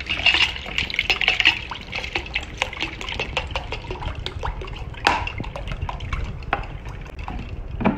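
Cold water poured from a plastic bottle into a glass jug of lemon juice, mint and ice cubes, splashing and filling, with scattered clinks against the glass.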